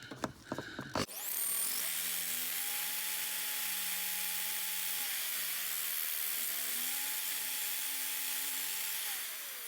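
Power-driven drill bit sharpener switched on about a second in, after a few handling clicks, and running steadily while it grinds a blunt 10 mm drill bit, with the pitch changing in two long passes.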